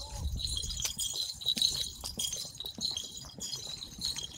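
Small bells and metal trinkets on carnival costumes jingling with each step, over footsteps on paving.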